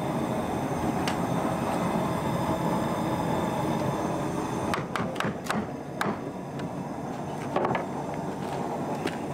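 Steady rushing roar of a running steam box, with a quick run of sharp knocks about five to six seconds in and another knock near eight seconds.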